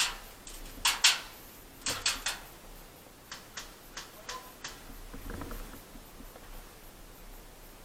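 Sharp clicks and snaps in small groups: two about a second in, three around two seconds, then fainter ones.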